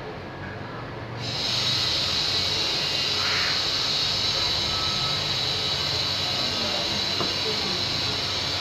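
A steady hiss comes in abruptly about a second in and holds, over a low hum.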